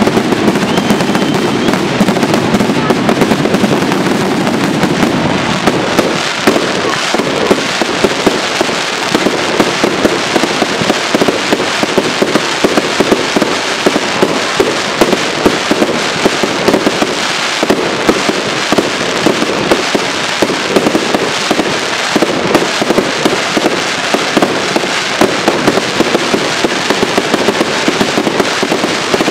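Crackling fireworks: a dense, continuous crackle of many small pops from crackle-effect star bursts, with sharper, louder pops scattered throughout.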